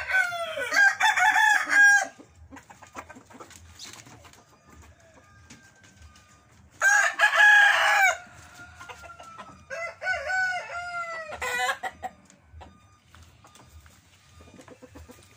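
Roosters crowing: three crows, one at the start, a louder one about seven seconds in, and a softer one about ten seconds in.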